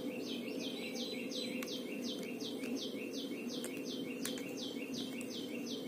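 A bird calling a rapid, even series of short high descending chirps, about four a second, over a steady low background hum, with a couple of faint clicks.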